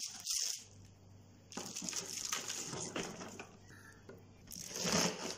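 Salt-wilted shredded white cabbage being packed into a plastic jar and pressed down by hand. It rustles and crunches in three short bursts.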